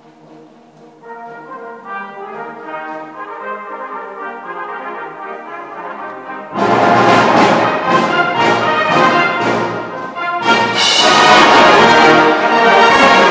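Brass band playing soft sustained chords that swell a little. About halfway through, the full band crashes in loud with sharp percussion strikes, dips briefly, and comes back in loud.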